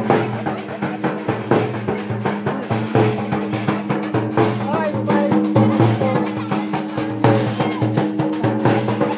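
Loud dance music with a steady, driving drum beat under a melody line.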